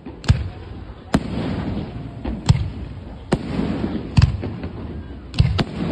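Aerial fireworks shells bursting in a quick series of sharp bangs, roughly one a second, about seven in all, with a low rumble after each and a steady noisy haze between; two bangs come close together near the end.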